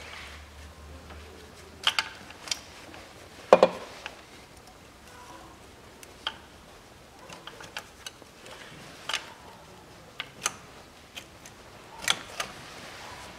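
Scattered short clicks and knocks of plastic glow plug connector caps and a small hook tool being worked loose by gloved hands; the caps are a tight fit. The loudest knock comes about three and a half seconds in.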